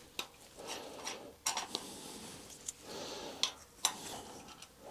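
A 5 mm Allen key working the small M6 bolts out of an engine's timing cover: a handful of light, sharp metallic clicks spread through, over soft scraping and rubbing of metal on metal.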